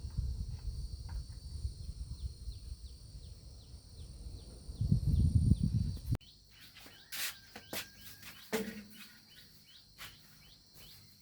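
Rural outdoor ambience: a steady high insect drone with repeated short chirps, several a second. A low rumble sits under it for the first half and cuts off suddenly about six seconds in.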